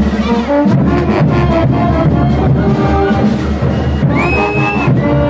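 Brass band with drums playing carnival dance music over a steady bass-drum beat. A high held note rises and eases about four seconds in.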